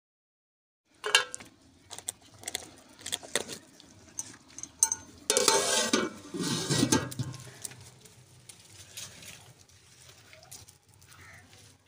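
Light metal clicks and knocks of a large aluminium cooking pot (degchi), then a louder clatter about five seconds in as its aluminium lid is set down on it, followed by faint ticks.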